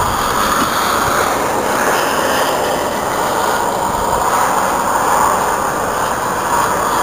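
Steady hiss of road traffic, car tyres running on a snow-covered road. It swells slightly twice as cars pass.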